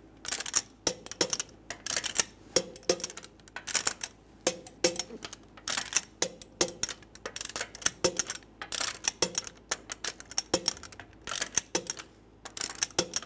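Torque wrench and socket working on steel wheel lug nuts, which are being torqued to 80 foot-pounds: many sharp metallic clicks and clinks in quick, irregular succession, some with a short ring.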